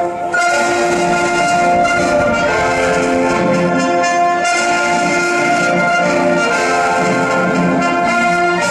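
Orchestral music led by brass, trumpets and trombones playing held notes over a full orchestra, loud and unbroken.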